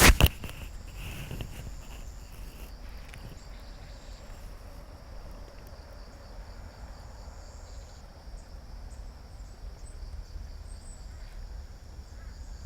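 Outdoor ambience: a steady high-pitched insect trill over a low rumble of wind on the microphone, after a brief sharp knock right at the start.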